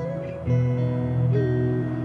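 Slow, soft ambient instrumental music with sustained notes; a new chord comes in about half a second in.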